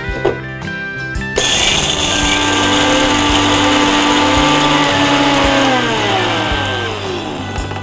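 Electric mixer grinder with a small steel jar powdering whole black pepper and cumin seeds. The motor starts abruptly about a second and a half in and runs loud for about four seconds. It is then switched off, and its whine falls in pitch and dies away near the end.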